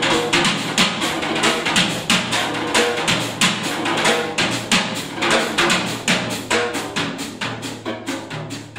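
Live instrumental trio of electric guitar, electric bass and drum kit playing, with the drum kit busy and to the fore in rapid strokes over low bass notes. It gets a little quieter over the last couple of seconds.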